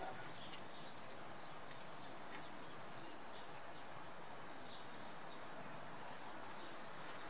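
Quiet, steady outdoor background noise with two faint short ticks about three seconds in.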